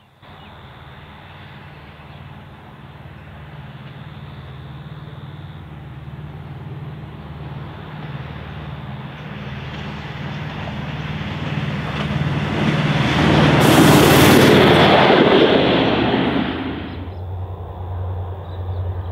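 A single-car diesel railcar approaching and passing close by. Its engine's steady hum grows louder for about thirteen seconds, then a rush of wheel-on-rail noise peaks as it goes past and drops away suddenly about seventeen seconds in.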